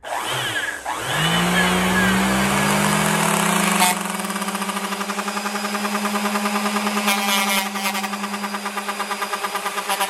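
Electric orbital sander switched on, its motor rising in pitch to full speed within about a second and then running steadily. From about four seconds in, a small wooden knife-handle blank is held against the spinning sanding disc, and the sound pulses quickly as the wood is sanded.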